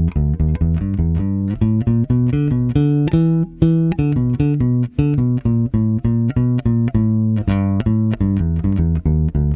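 Electric bass with flatwound strings and vintage Mustang-style pickups, played through a bass preamp/DI and a studio compressor, picking a steady run of separate notes at about four or five a second, with a brief break twice.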